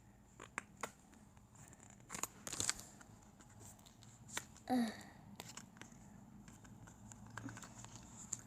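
Scattered small clicks and crackles of plastic bottles and containers being handled while colouring is squeezed into glue, with one short squeak that slides down in pitch about halfway through.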